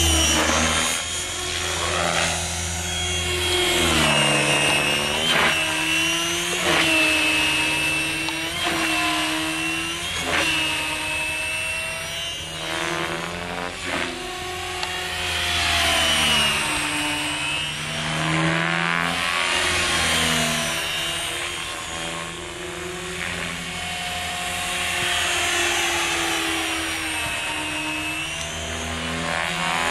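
Compass Atom 500 electric RC helicopter in aerobatic flight: its motor, gear and rotor whine rises and falls in pitch again and again as it manoeuvres.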